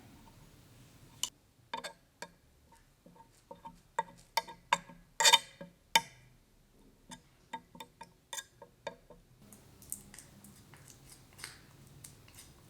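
Irregular sharp clicks and taps of hard parts being handled, a few with a brief ringing tone, coming thickest and loudest around the middle.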